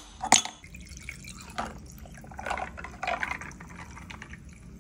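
Frozen red berries dropped into a ribbed glass tumbler with two sharp clinks, then water poured into the glass, splashing and filling it for a couple of seconds.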